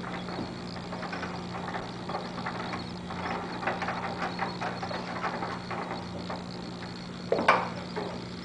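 Light clicking and clattering of hardware being handled, with one louder knock about seven and a half seconds in, over a steady low hum.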